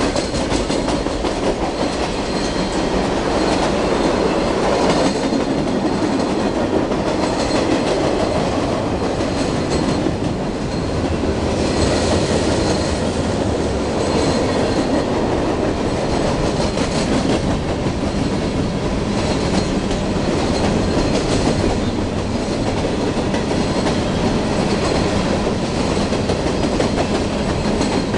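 Freight train cars rolling past: a steady rumble of steel wheels on the rails with repeated clacks over the track.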